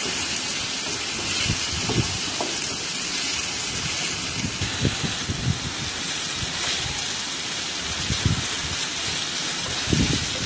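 Vegetables sizzling in hot oil in a frying pan as they are stir-fried with a wooden spatula, a steady hiss with a few soft knocks of the spatula against the pan.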